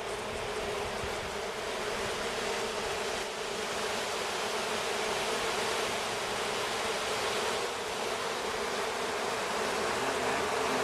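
Honeybee swarm buzzing: a steady, dense hum of many bees, holding even through the whole stretch.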